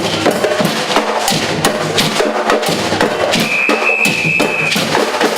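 Percussion band playing a driving drum rhythm, many drums struck together. Past the middle, a high whistle holds one steady note for about a second and a half.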